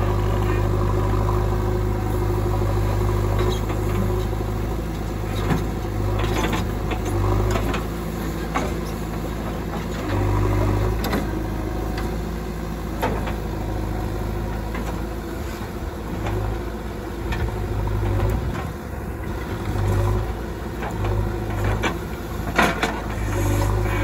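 JCB 3DX backhoe loader's diesel engine running as the backhoe arm digs and swings, its hum rising and falling with the load. Scattered short knocks and clatter of the bucket and soil, the sharpest near the end.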